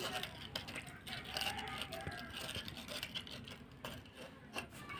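Fingers mashing roasted tomatoes into chutney in a small steel bowl: wet squishing and scraping with many small clicks.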